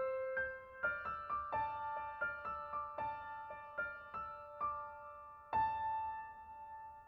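Soft background piano music: a gentle melody of single struck notes, with a held chord about five and a half seconds in that fades away.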